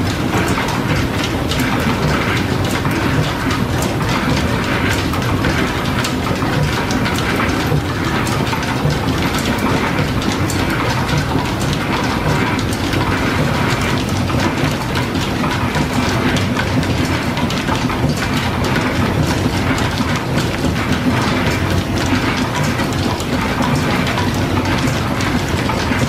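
Belt-driven metal shaper running under power feed, its ram stroking back and forth as the tool cuts a metal block, with steady dense clicking and knocking of the machine.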